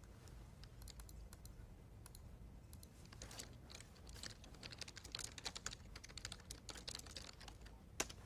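Faint typing on a computer keyboard: quick, irregular key clicks that grow busier in the second half, with one sharper click near the end.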